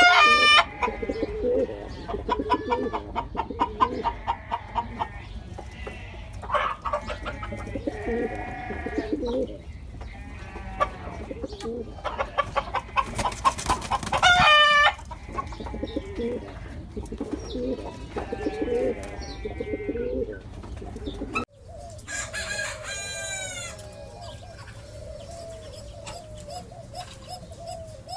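Ornamental pigeons cooing over and over. Louder, longer calls that rise and fall in pitch stand out near the start, about halfway through, and again after an abrupt cut about 22 seconds in.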